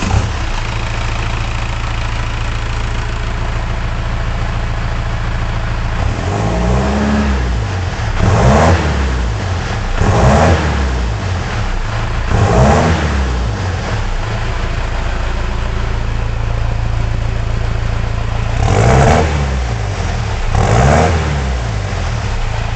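Cummins 4BT four-cylinder turbodiesel idling steadily just after starting, then revved briefly six times, each rev rising and falling back to idle. The exhaust is not yet fully plumbed.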